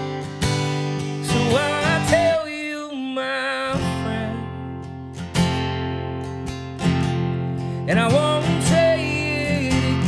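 Acoustic guitar strummed steadily, with a man's singing voice coming in for a wavering sung phrase about a second and a half in and another near the end.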